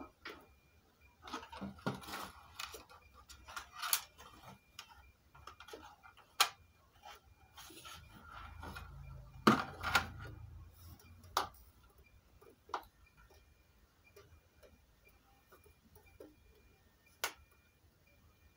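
Irregular clicks and knocks of a plastic speaker cabinet being handled on a wooden desk and its front buttons pressed. A low rumble comes in the middle, under the loudest knocks.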